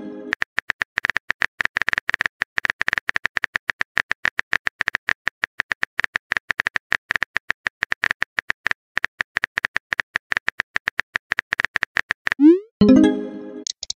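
Rapid, irregular tapping clicks of a phone keyboard typing sound effect as a text message is typed. About twelve and a half seconds in, a short rising whoosh and a brief chime sound as the message is sent.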